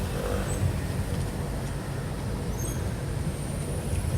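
Road traffic going by: a steady low rumble of vehicle engines and tyres.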